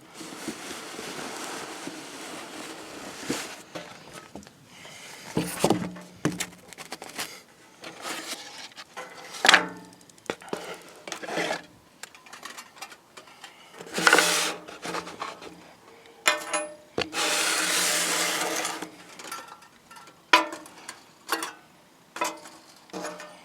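Cardboard toy box and packaging being handled and opened: rubbing and sliding, with scattered knocks and two longer rustles, one at the start and one about three-quarters through.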